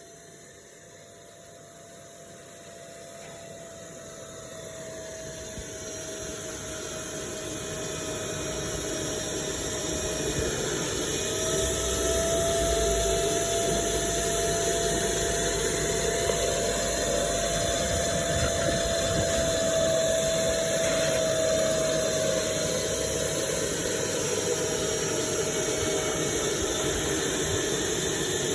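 Motor of a carpet-cleaning machine running with a steady whine over noisy airflow. It swells over the first ten seconds or so, then holds steady.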